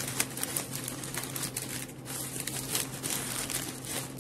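Sheets of bouquet wrapping paper being folded and pressed by hand, crinkling and rustling irregularly.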